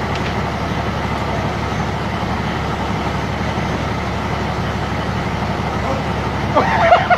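Steady running noise of a passenger train, heard from inside the carriage, with a low rumble underneath. A voice breaks in over it near the end.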